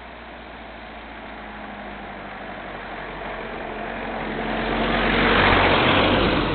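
A motor vehicle passing by: a steady engine-and-road noise that swells to its loudest about five seconds in, then begins to fade.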